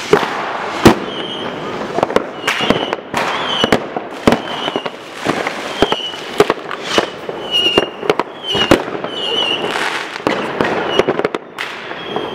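New Year's fireworks going off all around: sharp firecracker and rocket bangs at irregular intervals, often several a second, over a continuous crackle, with short high whistles in between.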